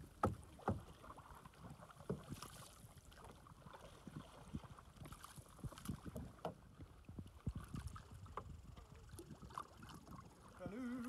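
Canoe paddling: paddles dipping and dripping in the water, with irregular sharp knocks. Two loud knocks come within the first second.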